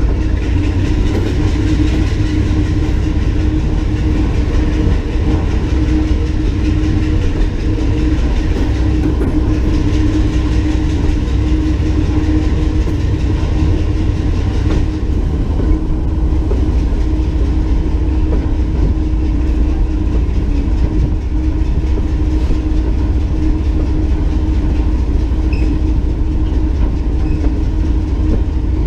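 Locomotive running at a steady speed along the track: a constant low rumble with a steady hum, and the wheels clicking over the rails.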